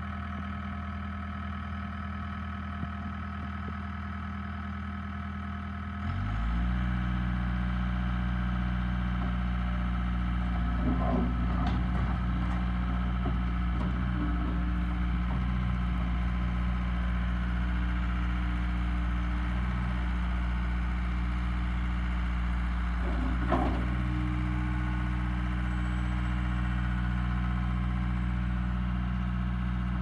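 John Deere 318D skid steer's diesel engine idling, then throttled up about six seconds in and running steadily at higher speed while the loader arms raise and lower the bucket. Two brief clatters, about a third of the way through and again past the two-thirds mark.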